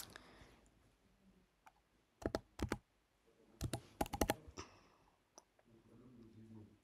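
Computer keyboard keys tapped while a password is typed: a few single clicks, then two quick clusters of keystrokes with short pauses between.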